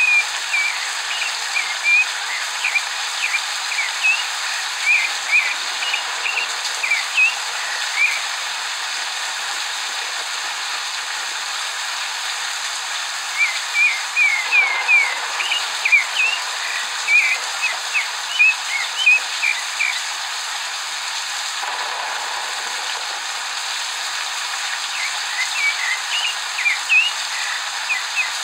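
Rufous-bellied thrush (zorzal) singing spells of short quick notes over a steady hiss of recorded rain from a rain-sounds app. The song comes in three spells with pauses of several seconds between them.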